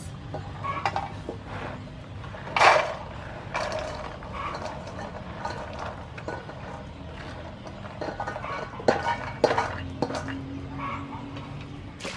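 Soaked black-eyed peas being stirred by hand in a woven bamboo tray and tipped into a stainless steel bowl: scattered rattles and clinks, with a few louder clatters.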